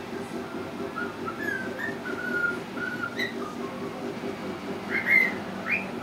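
Pet cockatiel whistling: a string of short, level whistled notes like a practised tune, then a few louder rising chirps near the end.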